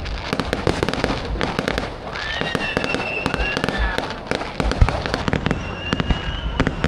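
Fireworks display: a dense run of irregular crackling pops and bangs, with a few high whistles lasting about a second each.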